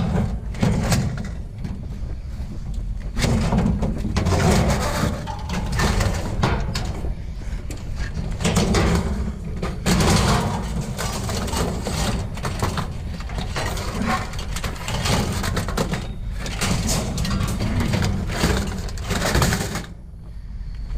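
Irregular clattering and rustling of scrap and junk being handled and shifted, with many short knocks, over a steady low rumble.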